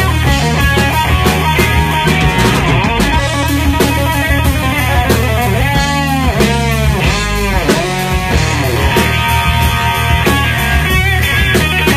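Live blues-rock band playing, with an electric guitar taking the lead over bass and drums. About halfway through, the sound takes on a repeated swooping sweep for a couple of seconds.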